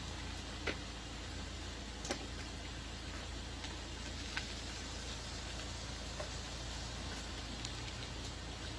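Steady low rumble and hiss of background noise, with a few scattered faint sharp clicks.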